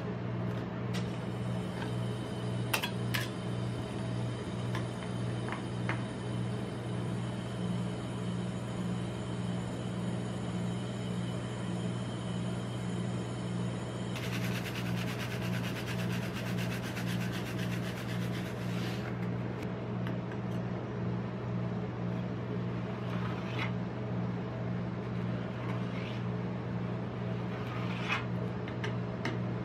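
Steady low hum of a rolled-ice-cream machine's refrigerated steel pan, with a few sharp clicks and scrapes of a metal spatula on the frozen ice cream sheet, twice near the start and again near the end as it is cut into strips. A hiss runs for about five seconds in the middle.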